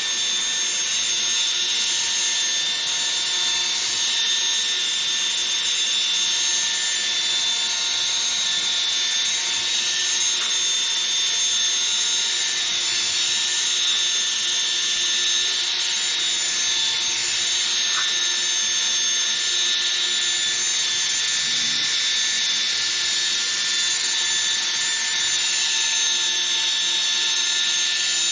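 Cordless drill spinning a polishing pad against a plastic headlight lens: the motor runs at a steady speed with an even whine over a rubbing hiss.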